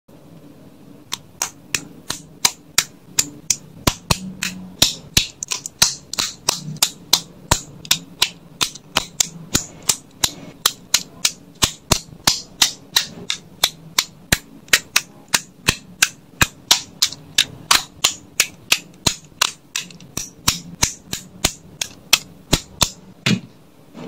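LEGO plastic bricks clicking together, a long run of sharp clicks about three a second, very evenly spaced, starting about a second in.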